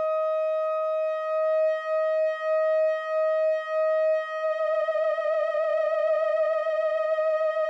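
Behringer Odyssey analog synthesizer holding one high lead note. Partway through it pulses in loudness about every half second, then it turns rough and buzzy for the last few seconds.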